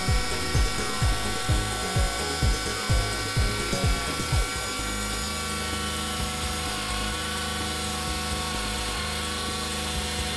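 Table-mounted router spinning a 1/2-inch bottom-bearing flush-trim bit with a steady high whine as it trims a Baltic birch plywood upright to its template. Over the first half a music beat of low thumps, about two a second, sits over the whine and then stops.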